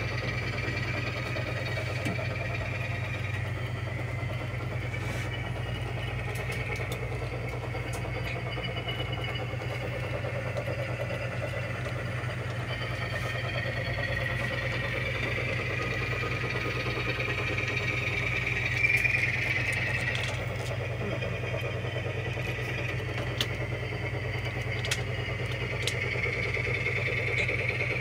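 Diesel engine sound from a model railroad locomotive's sound decoder, running as the switcher moves cars, its pitch rising and falling with a steady low hum underneath. It swells briefly about two-thirds through, and there are a few small clicks near the end.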